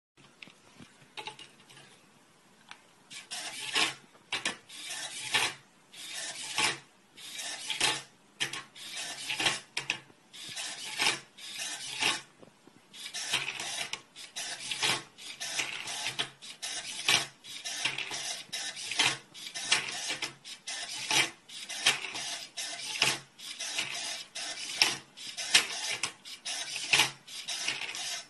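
A 2x2 Rubik's cube-solving robot turning the cube's layers, each move a short rasping clatter of motor and plastic. The moves come in quick succession, about two a second, with a brief pause about twelve seconds in.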